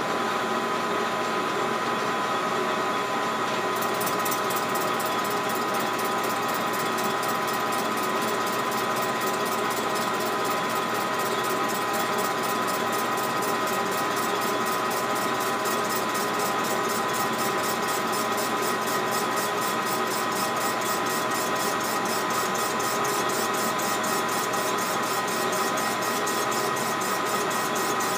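Metal lathe running with a steady motor-and-gear whine. A fast, even ticking joins in about four seconds in.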